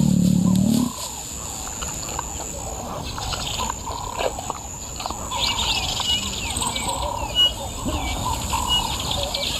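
Several birds chirping and calling over a steady high-pitched insect drone. A short high note repeats at an even pace from about five seconds in, and there is one brief, sharper sound about seven seconds in.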